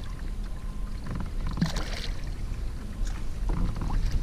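Water splashing beside a kayak as a hooked fish is scooped into a landing net, with short splashes about one and a half seconds in and again near the end, over a steady low rumble.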